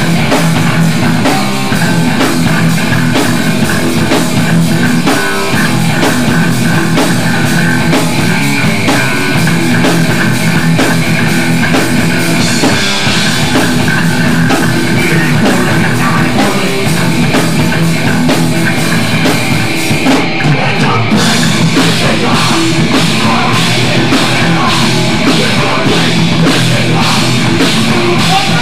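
A hardcore punk band playing live: distorted electric guitars, bass and a pounding drum kit, loud and dense throughout, with no vocals picked out.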